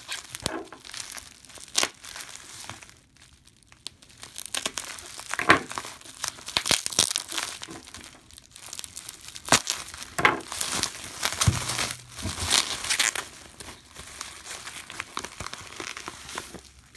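Plastic bubble wrap crinkling and crackling as a taped parcel is handled, cut with scissors and pulled open. The crackles and rustles come irregularly, with a brief lull about three seconds in.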